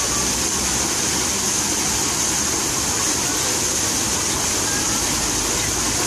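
Park fountain water falling and splashing in a steady, unbroken rush.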